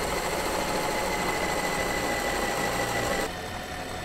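Panasonic food processor motor running steadily at its lowest speed, the plastic dough blade mixing flour and beetroot juice into pasta dough. The hum becomes quieter about three seconds in.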